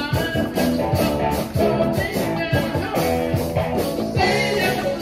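Rock and roll band music with guitar and a steady beat.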